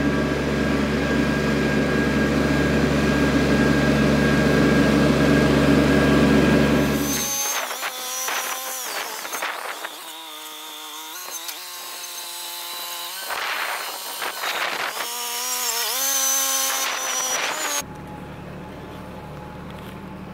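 Compact farm tractor's engine running steadily and loudly, then cutting off abruptly about seven seconds in. After it come several seconds of wavering, sliding pitched tones, and near the end a low, steady hum.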